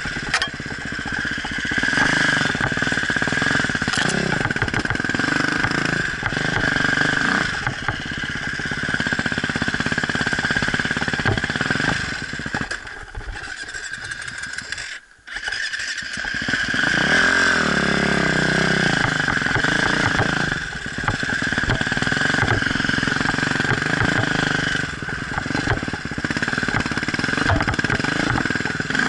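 Dirt bike engine running and revving up and down during off-road riding. The sound drops out briefly about halfway through, then the engine picks up again with rising pitch.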